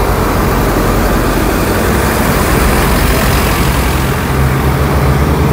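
City traffic heard from a moving bicycle: the diesel engine of a bus alongside gives a steady low hum over a constant rush of road noise. The low hum grows louder near the end.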